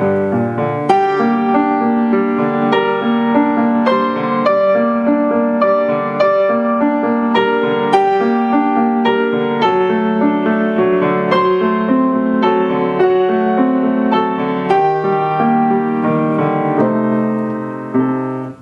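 Grand piano played solo, a continuous flow of struck notes and chords. Near the end the playing eases off, a last chord is struck, and the sound stops abruptly.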